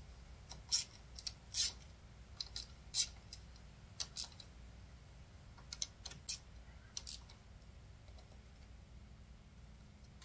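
Ratchet wrench clicking in short, uneven bursts as the 10 mm pressure-plate bolts of a Harley clutch are loosened a little at a time; the clicking stops about seven seconds in.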